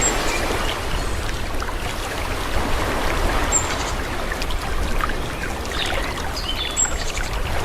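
Calm sea: small waves washing and lapping in a steady rush of water, with a few short, high chirps now and then.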